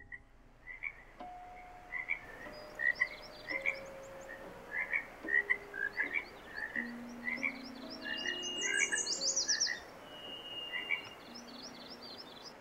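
Frogs calling: a chorus of short, repeated two-part croaks, with quicker high chirps over them and quiet held low notes underneath.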